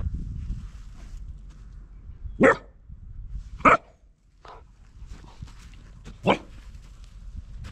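A five-month-old border collie puppy barking: three short, sharp barks about two and a half seconds in, a second later and near the end, with a softer bark between them.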